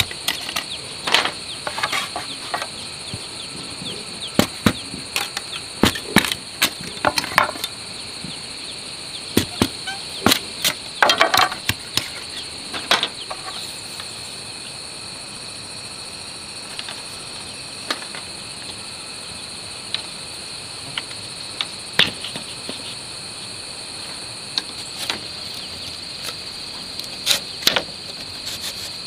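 A steady high-pitched insect drone throughout, over sharp knocks and cracks of a machete splitting bamboo. The cracks come thickly through the first half, then give way to occasional clacks of bamboo strips being laid on the ground.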